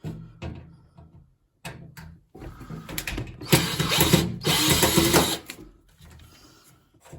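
Hand-tool work on a washing machine's front: a screwdriver undoing screws and handling the door lock, giving irregular ratchety clicks, scraping and rattling, loudest about halfway through.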